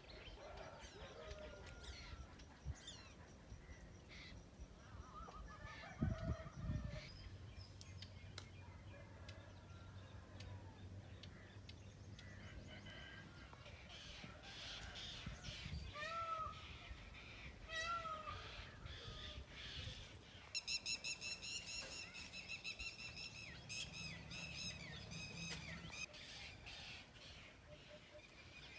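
Birds calling among bare trees: scattered short calls, two louder arched calls about two seconds apart past the middle, then a rapid high chattering trill for about five seconds near the end, over a faint low hum and one low thump early on.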